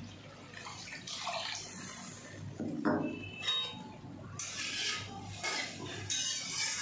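Metal spatula stirring thin, watery spice gravy in a metal kadai: irregular sloshing of liquid with scrapes of the spatula against the pan.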